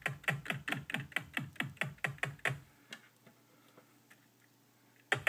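Kick drum sample in FL Studio triggered over and over from the keys of an M-Audio Keystation Mini 32 MIDI keyboard, about five hits a second, each a low thump that drops in pitch, with the keys clicking. The hits stop about halfway through, leaving a couple of faint clicks, and start again at the very end.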